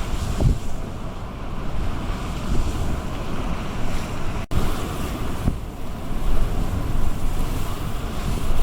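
Sea waves breaking and washing over a promenade sea wall in a gale, with strong wind buffeting the microphone in gusts. The sound cuts out for an instant about halfway.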